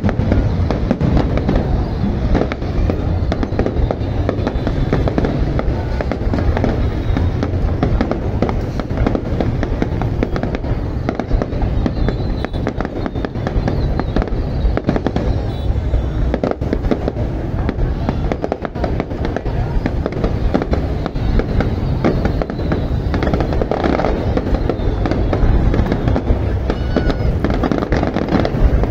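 Fireworks display going off continuously: a dense run of booms and crackling bursts, one on top of the next, with music underneath.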